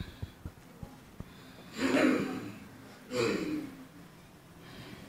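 A man breathing out twice, noisily and forcefully, with a snort-like sound about a second apart; a few faint ticks come before, and a weaker breath near the end.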